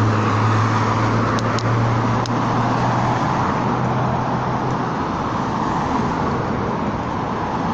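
Street traffic: cars driving past close by through an intersection, engine and tyre noise, with a low engine hum that fades about five seconds in.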